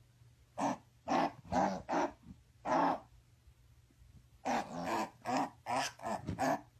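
Dog-like barking and growling: about five short barks in the first half, then after a pause a quicker run of about six more.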